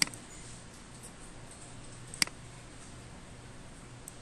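Two sharp computer-mouse clicks, one at the start and one about two seconds in, over a faint steady low hum.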